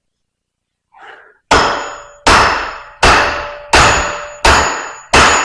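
Steady, evenly spaced hammer blows on metal, each with a short ringing tail, about one every three-quarters of a second, six strikes starting about a second and a half in. They drive a baler hydraulic cylinder's piston and rod assembly in against its tight piston seal.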